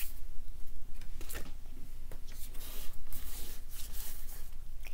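Pokémon trading cards being handled and slid one past another in the hands: a series of short, irregular rustles.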